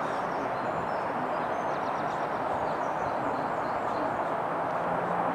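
Steady rumble and low hum of a train nearby, unchanging throughout, with a few faint high chirps above it.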